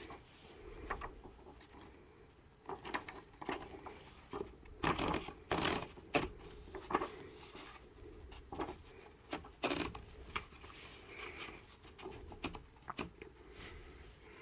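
Irregular clicks, knocks and scrapes of hands handling a Smith-Corona Coronamatic electric typewriter while it is still unplugged, with no motor running; the loudest knocks come about five to seven seconds in and again near ten seconds.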